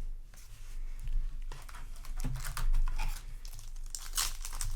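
Foil Yu-Gi-Oh! booster pack wrapper being torn open and crinkled: a quick run of crackling tears starting about a second and a half in, over a low steady hum.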